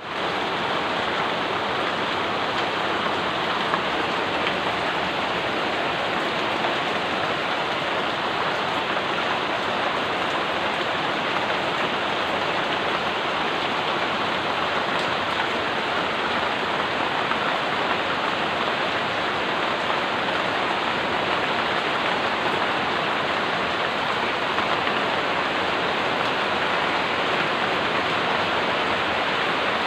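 Steady rain falling, an even hiss of many drops with no pauses or changes.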